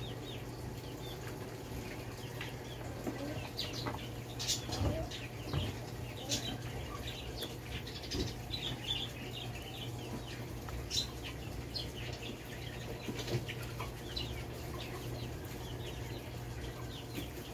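Close mouth sounds of someone eating soft, creamy durian flesh by hand: scattered wet smacks and clicks over a steady low hum.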